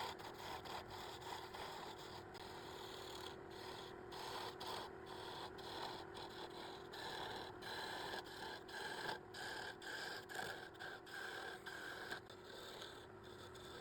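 Irregular hand scraping and rubbing on rusty metal, the kind made cleaning rust off old lathe parts, over a faint steady hum.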